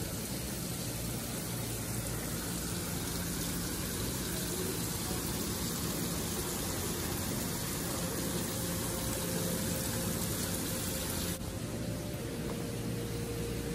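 Steady hiss of background noise with a faint low hum. A faint steady tone comes in about eight seconds in, and the higher part of the hiss cuts off suddenly a little past eleven seconds.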